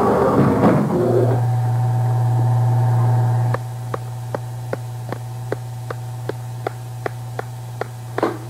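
A steady low hum with faint steady tones above it, dropping in level about three and a half seconds in. From then on, short regular ticks about two and a half a second, with a few louder knocks near the end.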